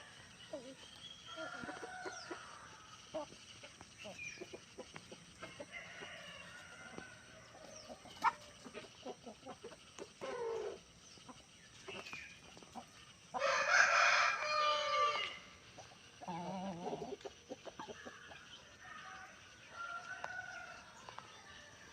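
Chickens clucking on and off, with one rooster crowing loudly for about two seconds about two-thirds of the way through, followed by a shorter, lower call.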